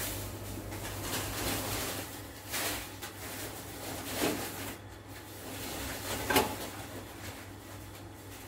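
Freezer drawers and frozen-vegetable packets being handled: a few separate clunks and knocks, the sharpest about six seconds in, over a steady low hum.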